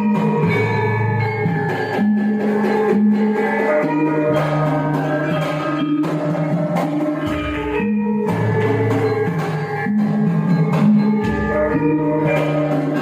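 Javanese gamelan ensemble playing: metal gongs and metallophones ring in layered pitched tones over drum strokes, with a deep low beat twice, about seven and eleven seconds in.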